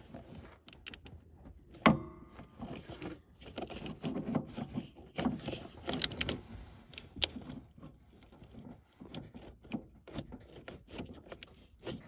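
Scattered clicks, knocks and rustling as a clutch master cylinder is worked against its firewall mount among plastic wiring looms, with one sharp click about two seconds in that rings briefly.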